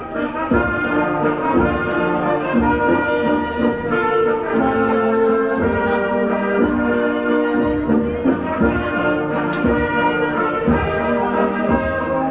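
Live folk band playing a lively tune, with held melody notes over a steady low beat.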